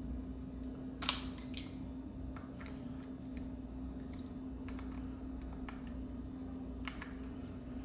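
Light clicks and taps of hand work on bicycle handlebar controls as the levers are adjusted and tightened, with a quick cluster of sharper clicks about a second in and scattered ones after. A steady low hum runs underneath.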